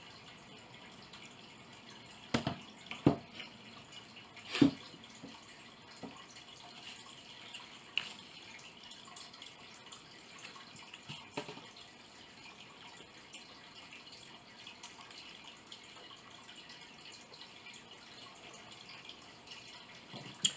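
A fork knocking against a plate a few times during eating, the loudest three knocks close together about two to five seconds in and a few lighter ones later, over a steady faint hiss.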